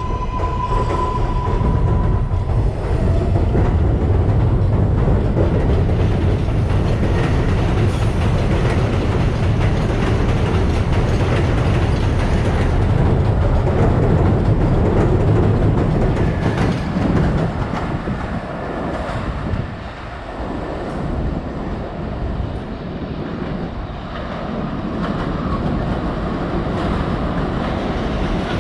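R188 subway train on the 7 line pulling out and running, wheels clattering over the rail joints. A steady tone fades out about two seconds in.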